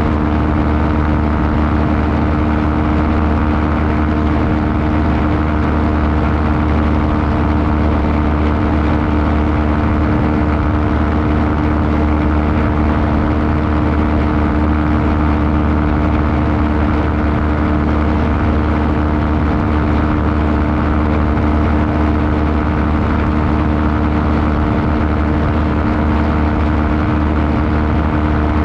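Small aircraft engine and propeller running steadily at cruise, heard on board, with an even tone that does not change.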